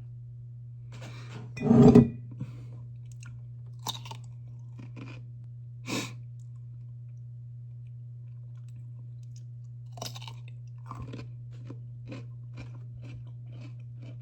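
A person chewing dill pickle with crunchy bites, in scattered crunches and wet clicks. The loudest crunch comes about two seconds in.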